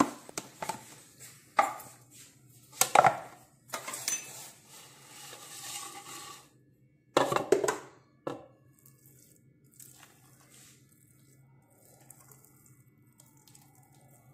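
Plastic parts of an electric food chopper being handled: the lid lifted off the bowl, with a run of sharp knocks and clatters and a stretch of scraping during the first eight seconds or so, then only faint handling.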